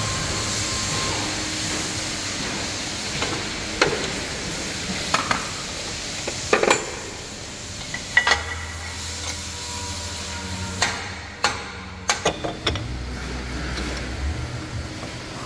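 Scattered metal clanks and clicks of steel clamps and pulling gear being fitted on a collision-repair frame bench, over a steady workshop hiss. A low hum comes in about eight seconds in.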